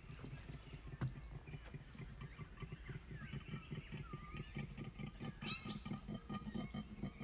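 Koala bellowing: a fast, even run of low snoring pulses that grows somewhat louder toward the end. Small birds chirp faintly above it.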